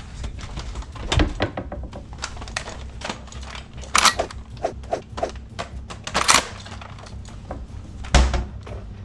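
Hard plastic clicks and knocks as a Nerf Demolisher blaster is pulled from a cabinet and handled. There are two louder rasping clacks about four and six seconds in, and a heavier thump near the end.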